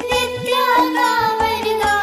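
Children singing a Hindi devotional school prayer over Indian-style backing music, with held instrumental tones and regular drum strokes beneath the voices.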